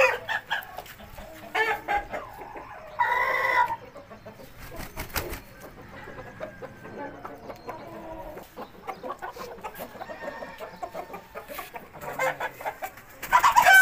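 Chickens of Pakistani and Thai game-fowl breeds clucking, with one loud short call about three seconds in and more calls near the end.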